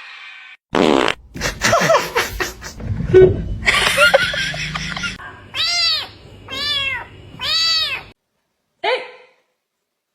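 A cat meowing three times in a row, each call rising and then falling in pitch, with a short fourth call near the end. The first few seconds hold a loud, raspy, noisy stretch.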